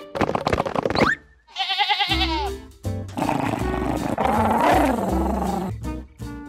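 Cartoon background music with animal cries over it, among them a wavering, bleat-like call about two seconds in and a louder, rougher cry that follows.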